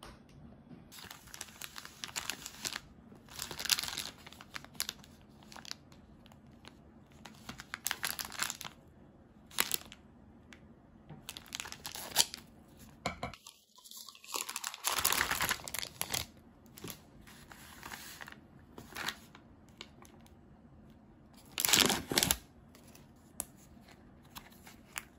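Crinkling and tearing of plastic candy packaging being handled, cut open with scissors and peeled apart, in a run of short rustles with a few louder bursts.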